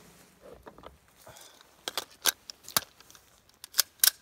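A handful of sharp metallic clicks and clinks from handling an AR-15 pistol and its sling hardware, about six of them in the second half.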